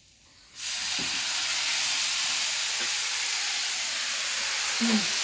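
Food sizzling in a hot frying pan. The sizzle starts suddenly about half a second in and then runs on steadily.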